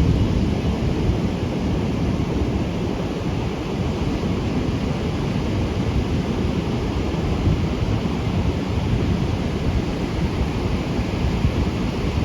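Steady wind rumble on the microphone over the continuous wash of breaking surf, swollen by typhoon swell.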